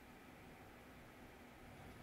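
Near silence: faint, steady room hiss.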